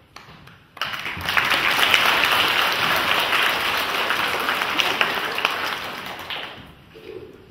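Applause from an audience and the students on stage, breaking out about a second in, holding steady, then fading out near the end.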